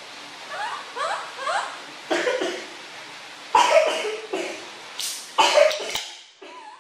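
Several sharp coughs, the loudest near the end, after a few short rising squeaks about a second in.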